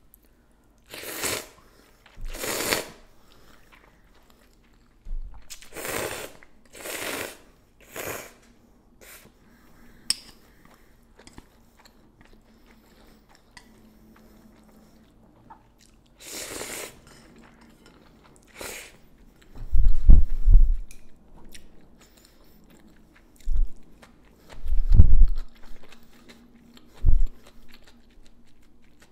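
A person slurping cold chewy instant noodles in several short pulls, with quiet chewing between them. In the second half come several loud low thumps of chewing.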